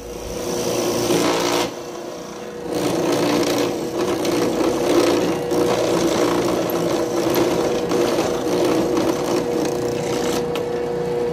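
Drill press running a quarter-inch bit through a carbon fiber chassis plate, drilling a row of holes and dragging the bit sideways to join them into a slot, over a steady motor hum. The cutting eases off briefly about two seconds in, picks up again, and stops suddenly at the end.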